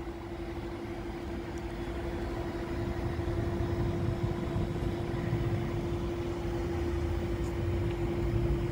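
Steady electrical hum from a Tesla Supercharger station's power equipment over a low rumble, growing a little louder over the first few seconds.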